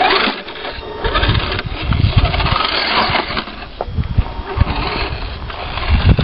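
Scale RC crawler truck's electric motor and gearbox whining, rising and falling in loudness as the truck is driven over rocks and up through dirt ruts, with a few low rumbling thumps.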